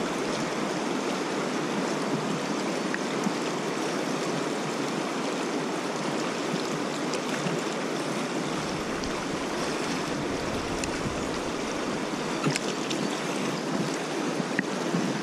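Fast river current rushing past a drifting raft: a steady wash of moving water, with a few faint ticks late on.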